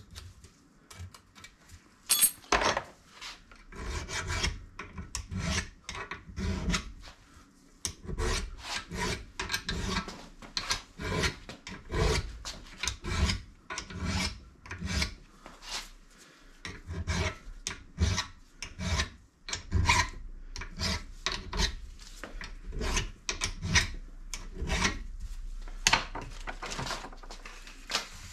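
Rhythmic hand scraping strokes, about two a second, cleaning overspray paint and old grease off the mating face of a Mini's bottom front swivel.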